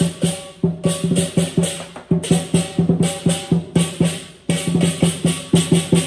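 Lion dance percussion: a drum beaten in rapid, evenly spaced strokes, several a second, with ringing cymbals, in phrases broken by brief pauses.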